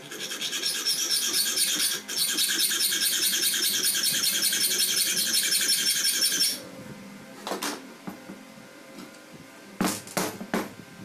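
Hacksaw cutting through a metal threaded rod clamped in a wooden vise: rapid, even rasping strokes with a brief break about two seconds in, stopping about six and a half seconds in. A few short knocks follow near the end.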